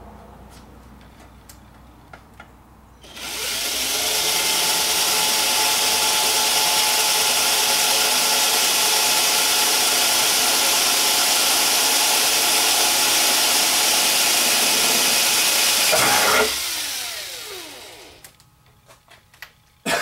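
Cordless drill running steadily for about thirteen seconds as its bit bores through the front lip of an aluminum gutter into the steel hidden hanger bracket behind it. The motor then winds down with falling pitch when the trigger is released.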